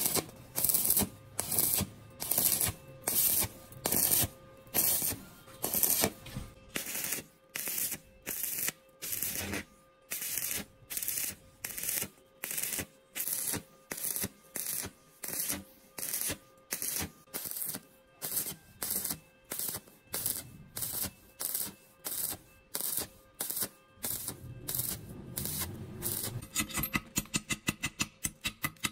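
Stick welding on galvanized square steel tube: the arc crackles and sputters in short regular bursts, a little more than one a second, with brief pauses between. Near the end a chipping hammer taps rapidly on the weld slag.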